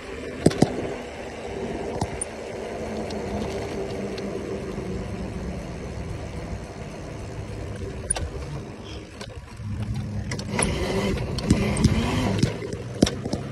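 Small dirt bike being ridden at a steady pace, its running sound mixed with a steady rushing noise, with several sharp knocks during the ride.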